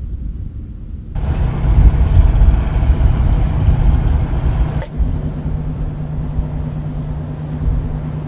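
Boat engine running under way with wind and sea noise. About a second in it turns into a louder, rougher rush of engine and wind noise, which cuts off near five seconds in to a steady low engine hum.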